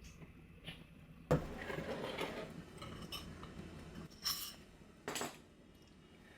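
Dishes and utensils being handled. A sharp knock about a second in is followed by a stretch of scraping and rustling, then two short clinks.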